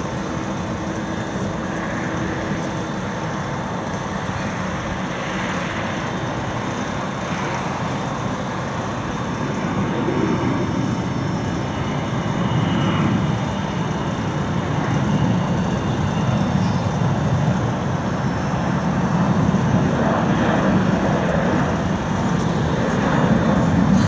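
Jet engines of an Airbus A340-300 at low thrust as the airliner taxis: a steady jet noise that grows louder through the second half as it comes closer.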